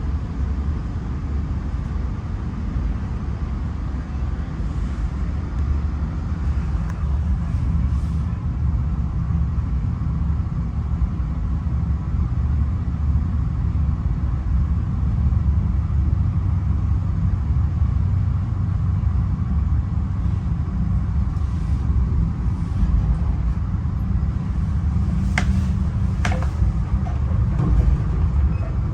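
Steady low rumble of a moving passenger rail car heard from inside the car, the wheels running on the rails. Two short, sharp clicks come near the end.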